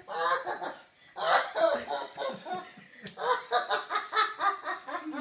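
An older woman laughing heartily in three bouts of rapid, breathy 'ha-ha' pulses. The last and longest bout starts about three seconds in.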